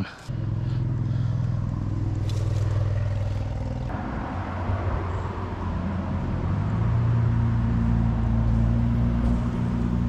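A low, steady engine drone, like a motor vehicle running, its pitch shifting a little about four seconds in.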